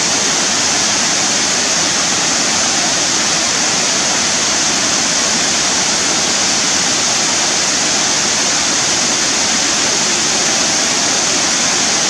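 Waterfall cascading over limestone tiers: a steady, unbroken rush of falling water with a strong hiss.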